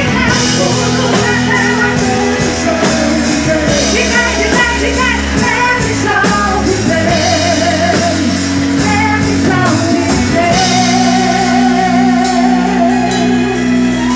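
Live gospel band playing with a woman singing lead over amplified instruments. About two-thirds of the way through, the deep bass drops away, leaving held chords under the voice.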